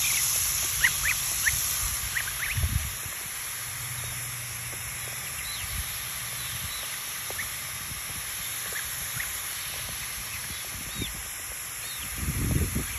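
Garden hose spray nozzle on its mist setting, hissing steadily, loudest in the first couple of seconds, with young birds giving short scattered peeps. A few low thumps near the end.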